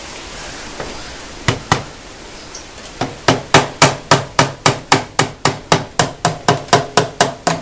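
A hammer tapping repeatedly on the Honda ANF125 Innova's engine to work a tight part loose. There are two taps about a second and a half in, then a steady run of about three to four taps a second from about three seconds in.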